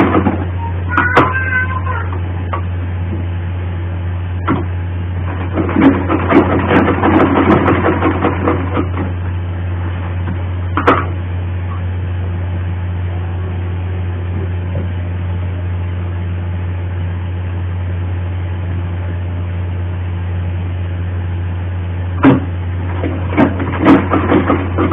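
Sewing machine stitching in short runs, the longest lasting about three seconds from around six seconds in and another near the end, over a steady low hum.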